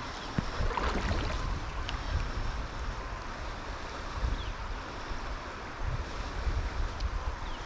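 River water rushing steadily, with wind buffeting the microphone in a low rumble.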